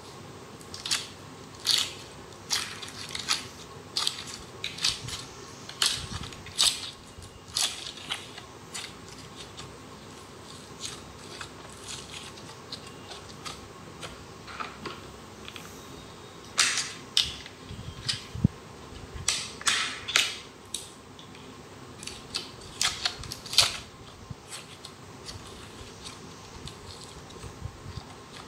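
Hands squishing and squeezing fluffy slime, making sharp wet clicks and pops that come in clusters, with a quieter stretch in the middle.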